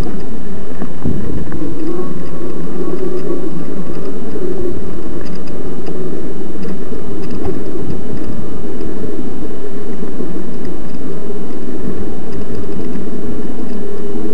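Loud, steady wind buffeting on the microphone of an electric mountain bike riding along a dirt track, with a low rumble of the ride underneath.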